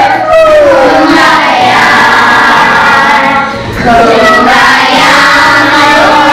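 A song sung by children's voices over sustained backing notes, with a brief dip in loudness about three and a half seconds in.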